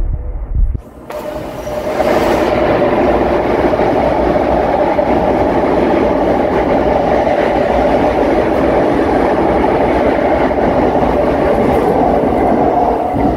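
Train running on its rails: a loud, steady rumble that starts abruptly about a second in and eases off near the end.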